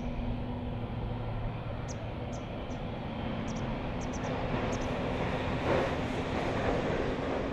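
Boeing 777-200's twin turbofan engines running at taxi idle: a steady hum with a low drone, swelling somewhat in rushing noise from about four and a half seconds in. A few short high chirps sound in the first half.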